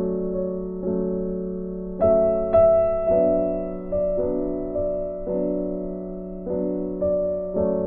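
Background piano music: soft sustained chords struck every second or so, each fading before the next.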